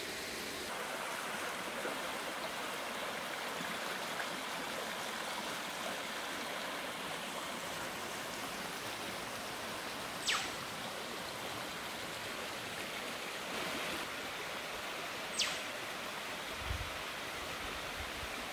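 Rain-swollen rainforest creek running over rocks: a steady rush of flowing water. Two short whistles fall steeply in pitch above it, about five seconds apart.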